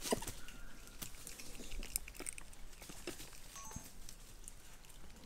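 Faint rustling of leaves and light clicks of twigs as a gibbon climbs and hangs in thin branches, with a few brief, faint high chirps.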